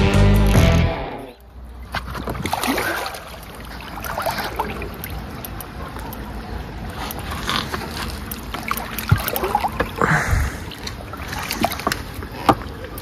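Background music fades out about a second in. Then water sloshing and splashing against an inflatable boat as a large wels catfish is brought up at the surface alongside, with scattered small knocks and clicks.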